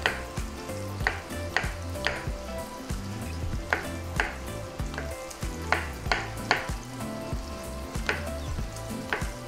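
Chef's knife slicing brown cremini mushrooms on a plastic cutting board: about a dozen sharp knocks of the blade on the board, coming in quick pairs and threes. Under them runs the steady sizzle of smoked bacon frying in a pan.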